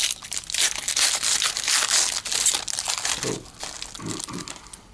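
A 2016 Donruss baseball card pack wrapper being torn open and crinkled: dense crackling for about three seconds that then fades.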